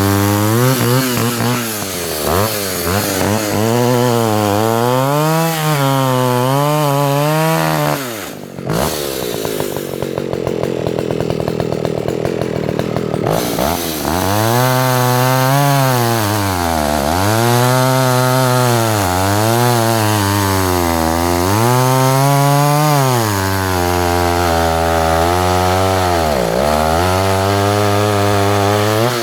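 Vintage Alpina 070S 70cc two-stroke chainsaw running under throttle, its engine pitch rising and falling again and again as it is revved and worked through wood. The revs drop briefly about eight seconds in, then pick up again.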